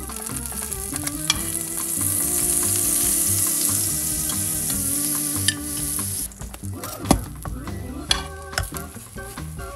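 Butter sizzling in a hot frying pan around an egg toast sandwich, fading out after about six seconds. Then a wooden spatula scrapes and taps on the pan as the sandwich is flipped.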